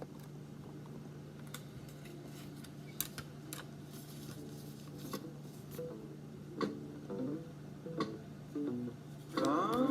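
A newly released music cassette playing back: over a steady low hum and a few clicks, plucked guitar notes come in partway through, and the music grows louder near the end.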